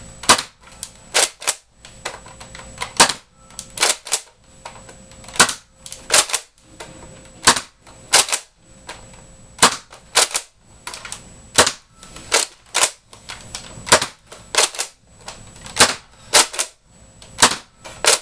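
Nerf Modulus Tri-Strike dart blaster being primed and fired over and over through its clip of regular darts, sharp clacks and pops coming in small clusters about once a second.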